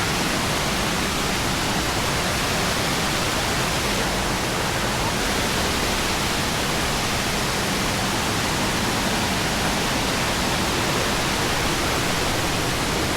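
Steady rush of falling water from a waterfall, an even hiss at a constant level with no breaks.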